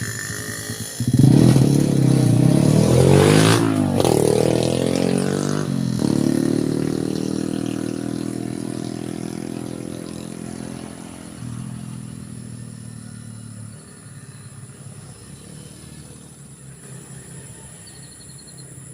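A motor vehicle, a motorcycle by its sound, passes close by: its engine comes in suddenly about a second in, revs with shifting pitch for a few seconds, then drops in pitch and fades slowly away.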